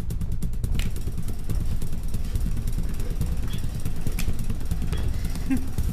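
Fogging machine running with a low, steady rumble.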